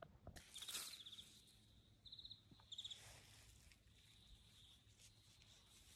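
Faint outdoor quiet broken by three short, high, rapidly pulsed chirps from a small animal, the first about half a second in with a brief rustle at the same time.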